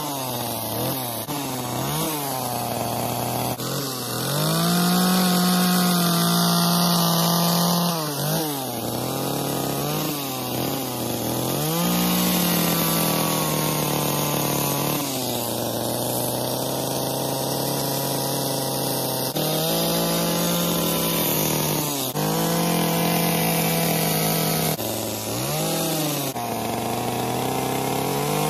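Gas chainsaw carving wood, its engine revving up to high speed and dropping back to idle again and again as the bar tip cuts detail into the log. It holds full revs for a few seconds at a time, with the longest cuts a third of the way in and in the last third.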